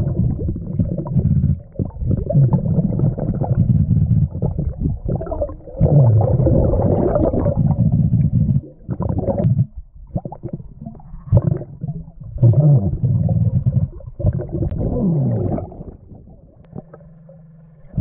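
Muffled underwater rumbling and gurgling in surges every few seconds, the sound of a diver's exhaled air bubbling past an underwater camera, with a steady low hum near the end.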